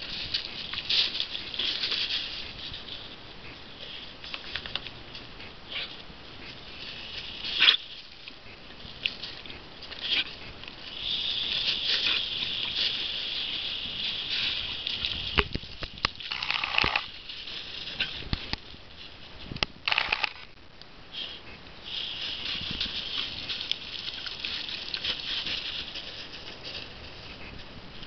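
Thin jet of water from a garden hose hissing and pattering on the ground, broken by splashes and snaps as a dog bites at the stream. The hiss comes and goes in stretches of a few seconds, with sharp clicks and splashes between.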